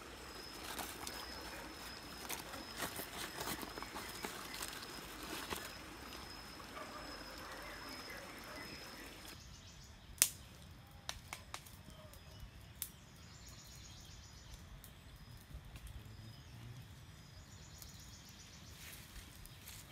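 Water trickling over stream rocks with a steady high insect whine and small handling clicks. About nine seconds in the sound changes to a quieter forest background, with one sharp snap of a dry stick, a few smaller cracks of twigs being laid for a fire, and faint bird chirps.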